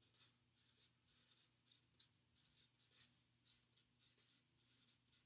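Very faint strokes of a felt-tip marker writing on paper chart, a scattering of short scratches.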